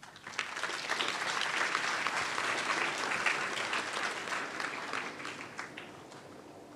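Audience clapping after a speech, starting just after it ends and dying away near the end.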